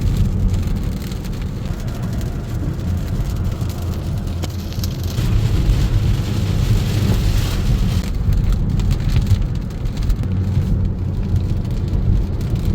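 Heavy rain falling, a steady rushing hiss over a strong low rumble.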